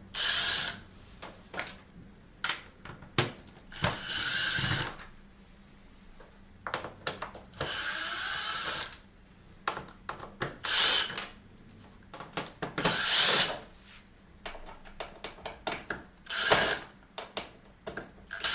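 Electric screwdriver running in short bursts of under a second, about six times, backing out the back-panel screws of a plasma TV, with small clicks and rattles of screws being handled between runs.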